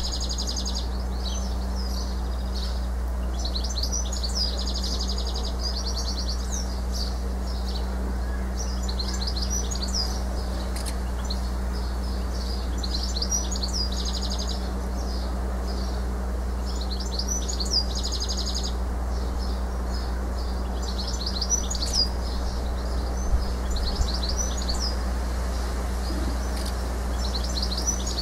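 House martins twittering: repeated bursts of quick, high chirps and trills every few seconds, over a steady low hum.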